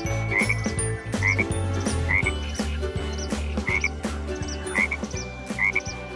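Frogs croaking, short calls coming about once a second over steady low background tones.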